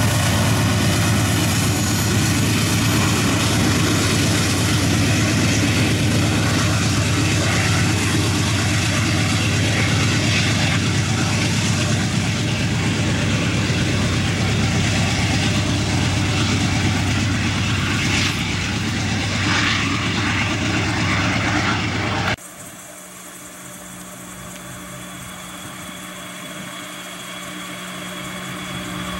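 Diesel freight locomotives running with a loud, steady engine drone. About 22 seconds in, the sound cuts suddenly to a much quieter, distant locomotive engine sound that slowly grows louder as the train approaches.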